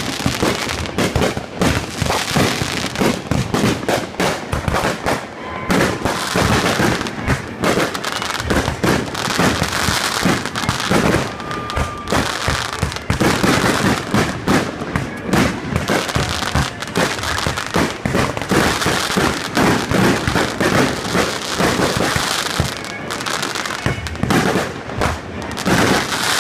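Aerial fireworks going off in a rapid, unbroken barrage, many bangs a second overlapping one another.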